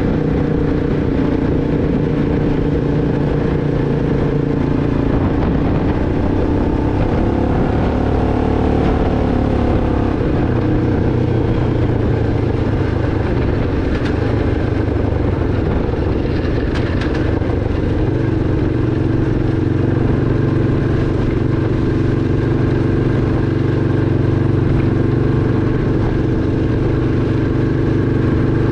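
A 2006 Arctic Cat 500 ATV's single-cylinder four-stroke engine running steadily while riding. Its pitch rises and falls a few times with the throttle, with a couple of faint clicks partway through.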